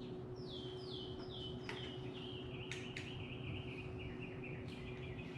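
A songbird singing: a run of quick whistled notes, each sliding down in pitch and stepping lower, that breaks into a faster, lower trill in the second half. A few sharp clicks and a faint steady hum sit beneath it.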